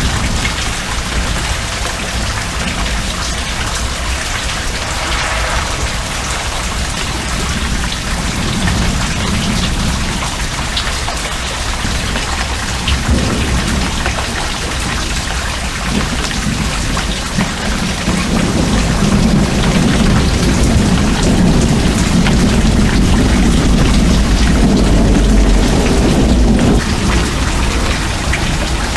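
Steady downpour of rain from a thunderstorm, with a low rumble of thunder that swells in the second half and then fades.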